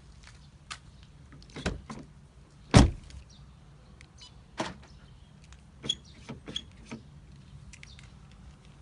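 Audi A3 doors and central locking: a series of separate clicks and knocks, the loudest a heavy thump about three seconds in, as the car's locks are worked and a door is opened and closed.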